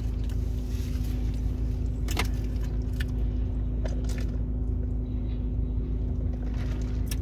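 Steady low hum of a parked car's engine idling, heard from inside the cabin, with a few short light clicks and rustles as a paper food wrapper and a drink cup are handled.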